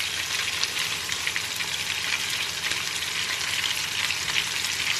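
Pieces of pike frying in oil in a frying pan: a steady sizzle with fine, continuous crackling.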